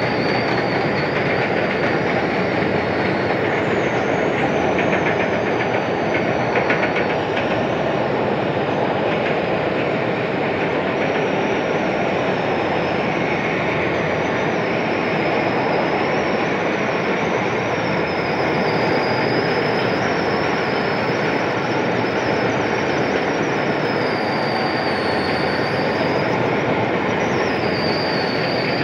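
Heavy factory machinery running: a loud, steady din with a high squeal that wavers up and down in pitch.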